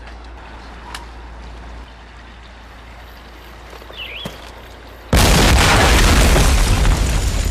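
A quiet low rumble, then a sudden loud boom like an explosion about five seconds in. Its noisy rumble holds for a couple of seconds and then fades.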